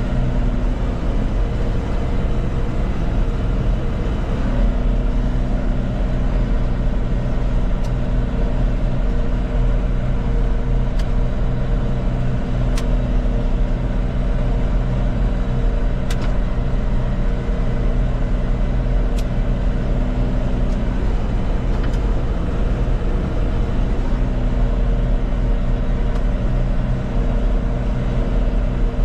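John Deere 5100M tractor's four-cylinder diesel engine running steadily under way. Its even note roughens and wavers through the middle stretch, then settles back to a steady note near the end.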